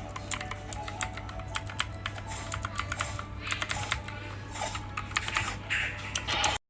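Fast typing on an RK61 Royal Kludge mechanical keyboard: a dense, irregular run of key clicks that cuts off suddenly near the end.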